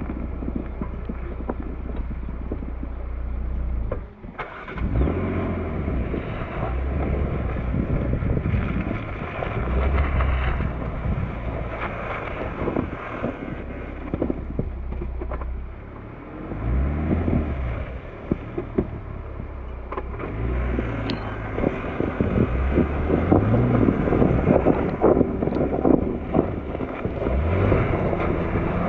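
Jeep engine running and revving up and down several times as it drives over snow, under a constant crunching and crackling of tyres on snow and wind on the microphone.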